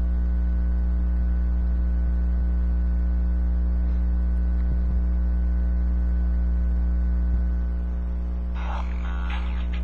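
Steady loud electrical mains hum with its overtones. About a second before the end, the audio of a streamed video starts playing through the Palm TX handheld's small built-in speaker, thin and without bass.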